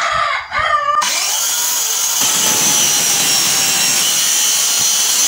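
JLD handheld electric circular saw cutting through a wooden board with its blade tilted to about 45 degrees for a bevel cut. The cut starts about a second in: a steady high whine over dense cutting noise. A rooster crows during the first second.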